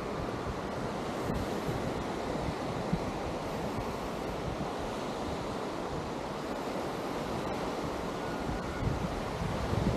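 Atlantic surf washing onto a sandy beach in a steady wash, with wind buffeting the microphone in gusts, a little stronger near the end.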